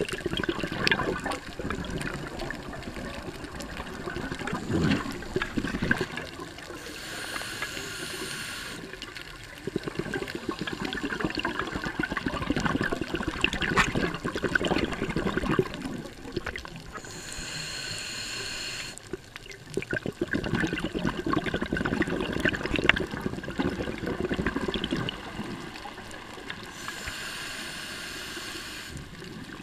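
Scuba diver's regulator heard underwater: three slow breaths about ten seconds apart, each a short hissing inhale through the regulator, between them a long crackling, bubbling exhale.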